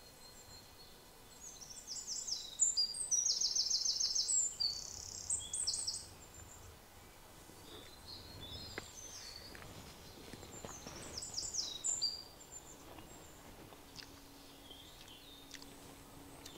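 Small songbird singing rapid high-pitched trills and chirp series, loudest in the first six seconds and again briefly around eleven seconds in, over faint outdoor background noise.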